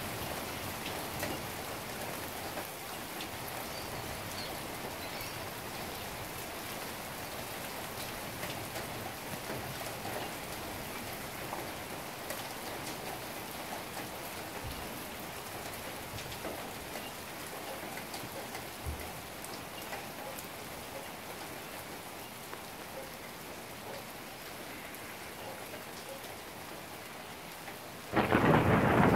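Steady rain falling, with scattered small ticks of drops. Near the end, a loud clap of thunder breaks in suddenly.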